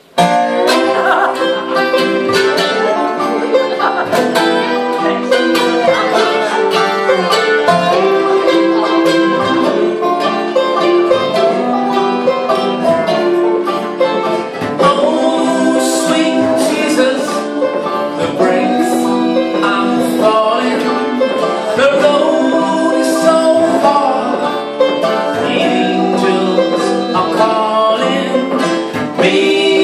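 Bluegrass band playing live: banjo, mandolin, guitar, dobro, fiddle and upright bass, with a man singing lead at times.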